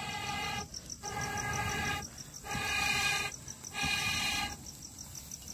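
Four long blows through a blowpipe onto glowing charcoal in a clay pit stove, each about a second with a breath between, sounding a steady pitched tone over the rush of air. The blowing is fanning the coals to keep them burning. Crickets chirp steadily behind, about four chirps a second.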